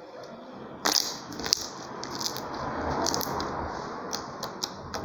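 Homemade glossy slime being pressed and folded by hand to pop trapped air bubbles: a string of sharp pops and clicks over soft squishing. The two loudest pops come about one and one and a half seconds in.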